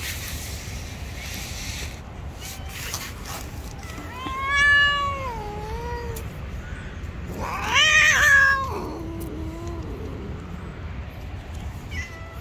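Gray-and-white cat meowing twice, about four and seven and a half seconds in; each call rises and then falls, and the second is longer and trails off lower.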